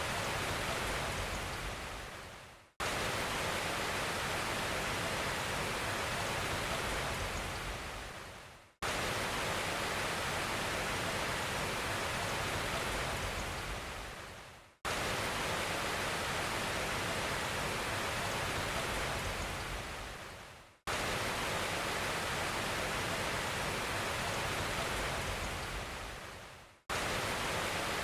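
Steady, even rushing hiss that fades away over about two seconds and then cuts back in at full level, repeating every six seconds.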